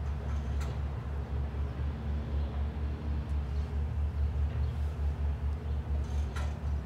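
A steady low hum, pulsing slightly, with a few sharp clicks about half a second in and again near the end.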